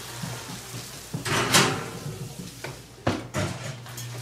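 Oven door opened and a cast iron skillet set inside with scraping and clatter, then the door shut with a knock about three seconds in, over a steady low hum.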